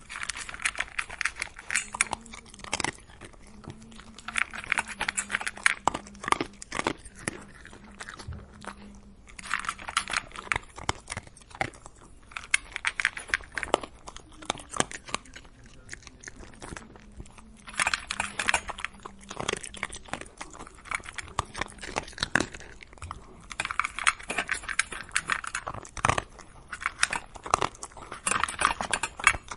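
A dog eating, chewing and crunching its food in repeated bursts of sharp, crackly bites with short pauses between.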